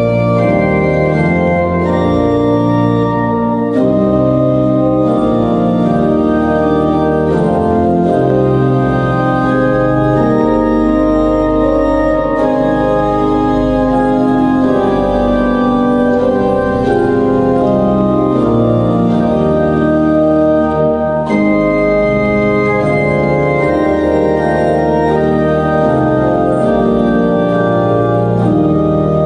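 Organ playing slow music in held chords, the notes changing every second or two.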